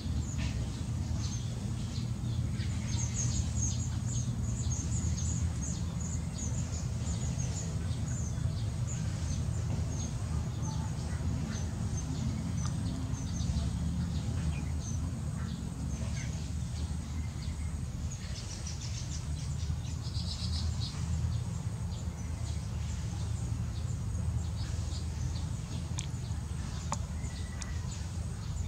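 Baya weavers chirping: many short, high chirps in quick runs, thickest in the first few seconds and again about twenty seconds in, over a steady low rumble.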